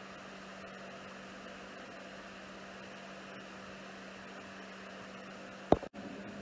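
Steady low electrical hum with faint hiss: room tone. Near the end, a single sharp click, followed by a split-second dropout in the sound.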